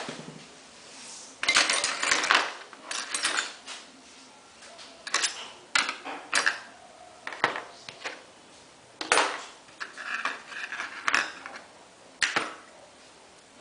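Hard metal objects clinking and clattering as they are handled and set down, in about a dozen irregular knocks, the busiest run about one and a half to two and a half seconds in.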